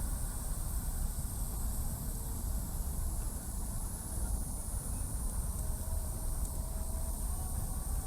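Steady outdoor background noise: a continuous low rumble under a high, even hiss, with no distinct events.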